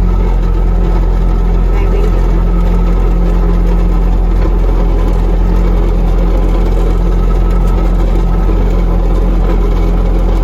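Skid steer engine running steadily at a constant speed, loud and close.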